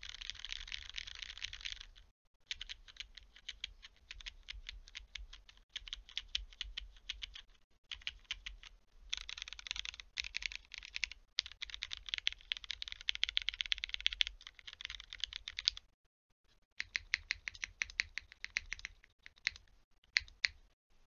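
Typing on a Geonworks F2-84 mechanical keyboard with lubed Cherry MX Black Hyperglide linear switches, GMK Honor keycaps and an aluminium plate without foam: dense runs of keystrokes in several bursts, broken by short pauses and one longer pause about two-thirds of the way in, stopping just before the end.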